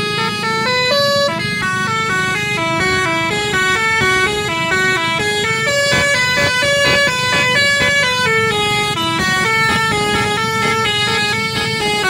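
Basuri telolet multi-tone air horn on a tour bus playing a melody, note after note stepping up and down a few times a second, over a low rumble.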